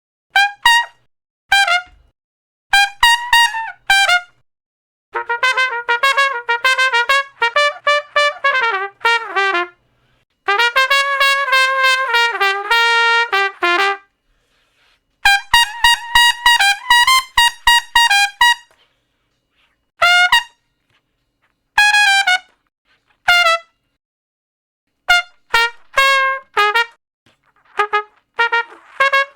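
Solo trumpet playing a string of short phrases of quick, separate notes, each phrase followed by a brief silence; the phrase in the middle is longer, with held notes.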